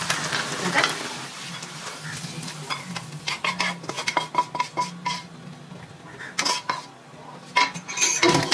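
Kitchen utensils knocking, clinking and scraping against a pan and dish as cooked sardines in tomato sauce are dished out, in a run of short knocks that gathers from about three seconds in and comes again near the end. A faint sizzle fades out in the first second.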